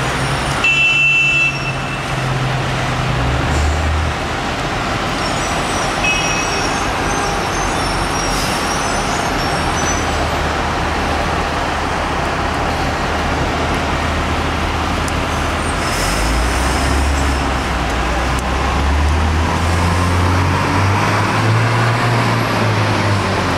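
Steady city street traffic: car and bus engines running and tyres on a wet road, a continuous haze of noise with a shifting low engine hum. A brief high squeal about a second in.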